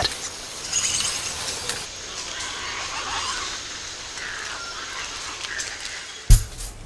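Tropical forest ambience: a steady hiss with faint animal calls. A sudden low thump near the end.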